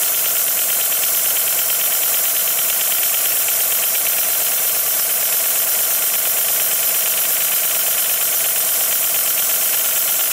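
Gauge one GWR 14xx model tank locomotive's cylinders and motion running on compressed air in reverse, with a steady hiss of exhausting air, on its first test runs on air. An air compressor runs steadily behind it.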